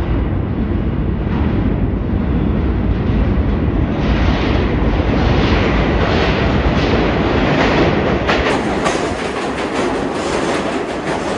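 NYC subway R62A train on the 6 line running past the station, a loud steady rumble with its wheels clacking rhythmically over the rail joints.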